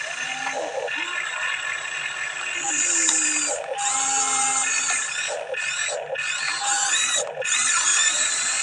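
Huina 1593 RC excavator's electric motors and plastic gearboxes whining and squealing as its functions run. The pitch glides up and down, and the sound stops and starts several times as the controls are worked.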